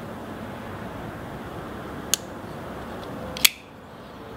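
Two sharp metallic clicks from a Civivi McKenna liner-lock folding knife as its blade is worked while checking for blade play, a small one about two seconds in and a louder one with a short ring about a second later, over a steady background hiss.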